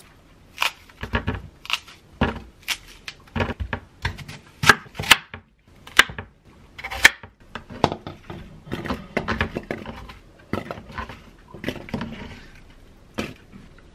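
Kitchen knife cutting an apple into chunks on a wooden cutting board: an irregular run of sharp knocks as the blade goes through the fruit and hits the board. Near the end the apple pieces are handled into a wooden bowl.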